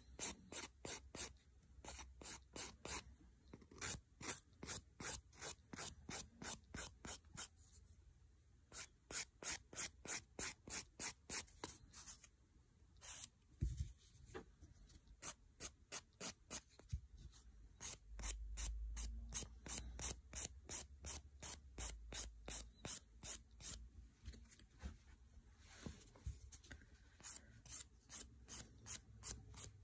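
A 180-grit emerald nail file rasping back and forth over hard building gel on a fingernail, filing the gel off, at about three quick strokes a second with a couple of short pauses.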